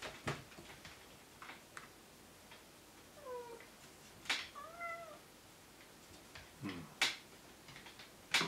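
Orange-and-white domestic cat meowing twice, about a second apart: a short rising call a little after three seconds in, then an arched call just after the middle. Sharp knocks and taps on the desk come in between, the loudest around the middle and near the end.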